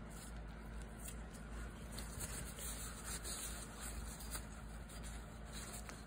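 Faint, irregular scrubbing of a Scotch-Brite pad on an aluminium chainsaw piston, cleaning off carbon smear, over a steady low hum.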